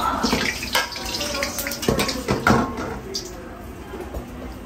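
Water sloshing and steaming in a hot wok on a gas-fired wok burner, with a few metal knocks as the wok is handled; the loudest knocks come about two to two and a half seconds in.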